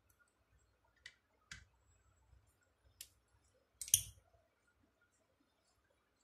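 Screwdriver clicking against the bolts and carbon brush holder on the back of a Lexus LS 430 alternator as the two holder bolts are undone: a few separate sharp clicks, with the loudest cluster about four seconds in.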